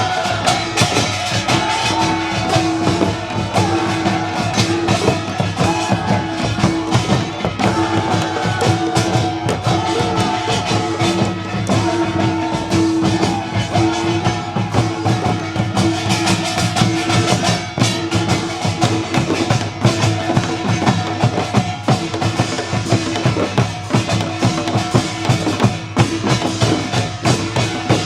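Traditional Korean folk music: fast, continuous drum percussion with a wavering melody line over a steady held tone.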